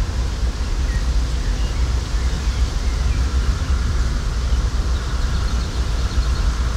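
Outdoor ambience recorded through homemade microphones: a steady low rumble under an even hiss, with a few faint high chirps scattered through.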